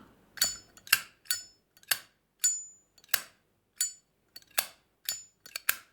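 Zippo lighter's lid flicked open and snapped shut over and over: about a dozen sharp metallic clicks, several carrying a brief high ringing clink. Its standard steel insert makes the lid snap. The sound is a pretty nice one.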